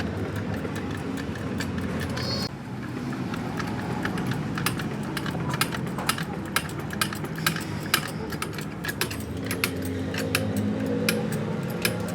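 Irregular sharp metallic clicks and clinks, denser after the first couple of seconds, over a steady low hum.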